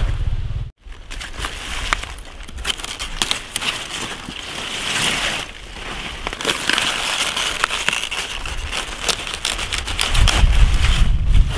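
Leafy brassica greens rustling and crackling as they are handled and snapped off by hand, with many quick crisp snaps of leaves and stalks. Wind rumbles on the microphone near the end.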